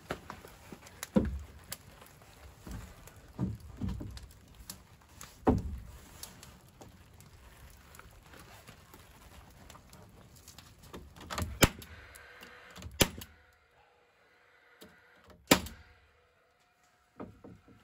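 Irregular wooden knocks and thuds as pine shiplap boards are pushed and knocked into place on a wall, then a few sharp nail-gun shots into the boards in the second half.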